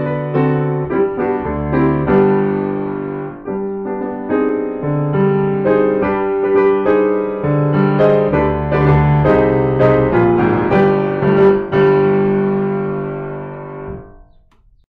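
Solo piano playing chords; the last chord rings and dies away near the end.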